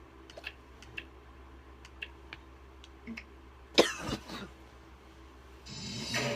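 A person coughs and clears their throat once, about four seconds in, against a quiet room with small clicks; music starts up near the end.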